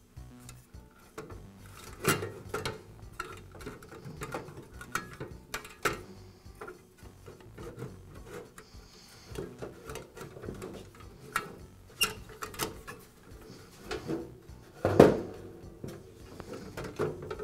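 Plastic fan-heater grille and its reflector being shifted and pressed onto a sheet-metal housing: irregular clicks, knocks and rattles, with the loudest knock about fifteen seconds in.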